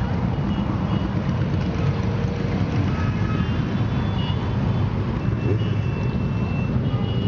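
A procession of motorcycles riding past at low speed, their many engines running together in one steady mass of engine noise.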